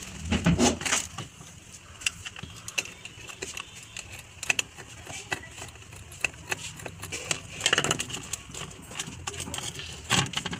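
Small plastic clicks and rattles from the opened emergency light casing and its circuit board and wires being handled, over a steady low hum. The handling noise is loudest about half a second in and again near eight seconds.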